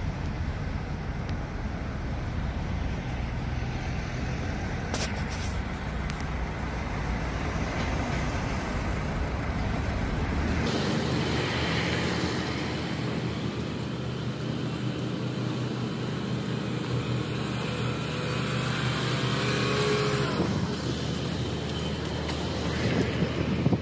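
Road traffic: steady car engine and tyre noise, with cars passing. The sound changes suddenly about ten seconds in, as if at a cut.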